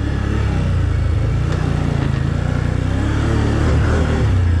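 Can-Am Outlander ATV engine running steadily under load while the quad is ridden over a rutted dirt track, the engine note swelling slightly near the end.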